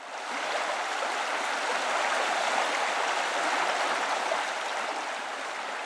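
Mountain creek rushing and cascading over rocks, a steady rush of water that fades in at the start.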